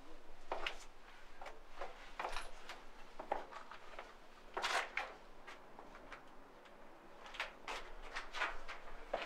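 Footsteps scuffing on a gritty stone floor inside a small stone-walled room, irregular steps with one louder scrape about halfway through.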